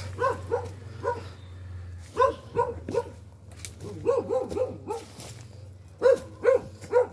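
A dog barking repeatedly, short barks in loose runs of two to four with brief gaps between.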